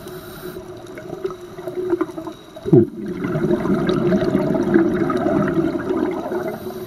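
Scuba diver's regulator heard underwater: a short falling tone about two and a half seconds in, then a louder rush of exhaled bubbles for about three seconds that fades near the end.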